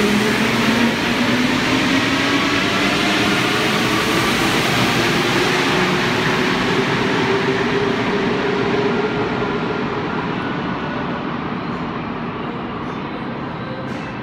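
CAF NS-07 rubber-tyred metro train pulling out of the station. Its traction motors whine, rising in pitch as it accelerates, over steady rolling noise that fades away after about nine seconds.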